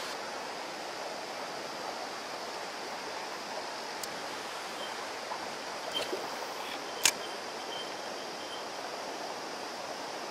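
Shallow mountain stream running over rocks, a steady rush of water. A single sharp click sounds about seven seconds in.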